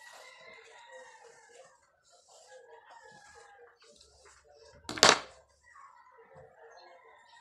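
Roosters crowing, several drawn-out crows one after another with short gaps. About five seconds in, one sharp knock, the loudest sound.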